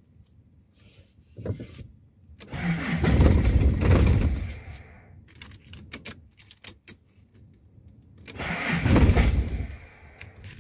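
Ignition keys rattling, then a car's starter motor cranking the engine in two tries of roughly two and a half and two seconds, with clicks between them. The engine does not catch.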